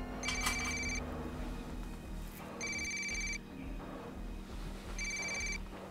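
Mobile phone ringing with an incoming call: a repeating electronic ringtone, three short identical bursts about two and a half seconds apart.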